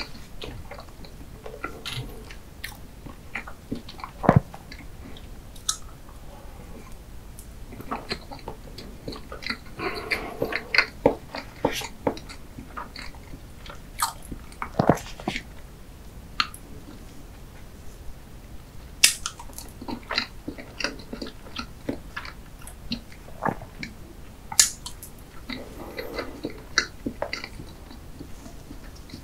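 Close-miked chewing of soft chocolate layer cake with cream, wet and irregular. A few sharp clicks stand out, about four louder ones spread through, as a metal fork cuts into the cake's chocolate coating.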